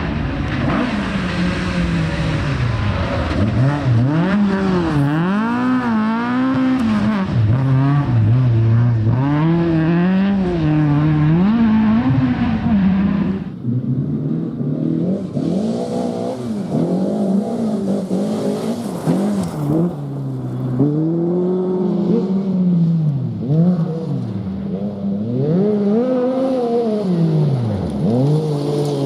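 Rally car engines revving hard, pitch climbing and dropping again and again as the cars accelerate, change gear and lift off. About halfway through the sound changes abruptly to a second car or position, which then goes through the same rising and falling revs.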